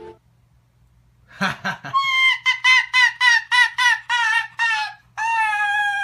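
Pet white fox giving a rapid series of high, pitched cries, about three a second, each dipping in pitch at its end, then one longer cry near the end.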